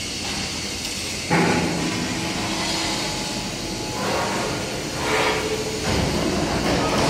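Steady mechanical rumble and hiss that changes character abruptly a few times, louder from about a second in.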